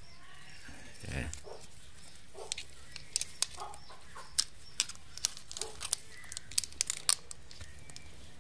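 Hard land-snail shells clicking and knocking against each other as they are picked up by hand from leaf litter: a dozen or so sharp, irregular clicks with light rustling of dry leaves and twigs.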